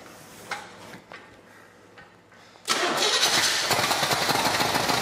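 Chevrolet 350 small-block V8 in a Farmall H tractor firing on its first start in years, primed with gas poured into the carburetor bowls. After a few faint clicks, it catches suddenly just under three seconds in and keeps running.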